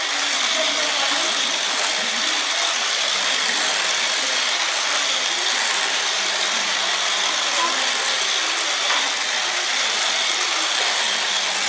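Toy radio-controlled cars' small electric motors and plastic gears whirring steadily, with a faint high whine, as they drive and turn on a tiled floor.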